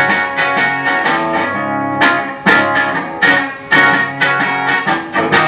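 Hollow-body electric guitar played through an amplifier: a steady rhythm of strummed chords, about two to three strokes a second.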